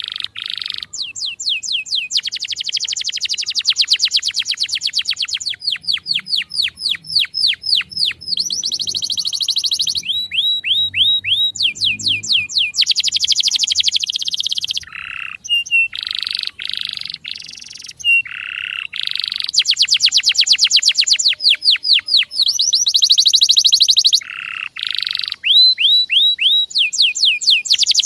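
Male canary singing a long, unbroken song made of fast trills: runs of rapidly repeated notes, many sweeping down in pitch, switching to a new run every second or two.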